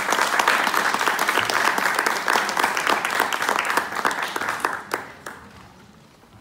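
Audience applause, a dense patter of many hands clapping, that thins to a few last claps about five seconds in and dies away.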